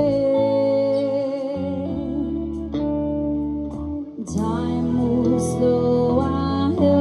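Live band playing a slow song, with electric guitar over bass and drums. The music dips briefly about four seconds in, then picks up again.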